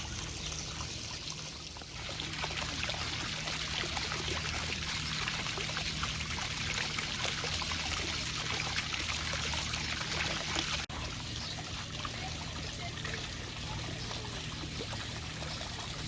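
Water running and trickling steadily, growing louder about two seconds in, with a momentary break near eleven seconds.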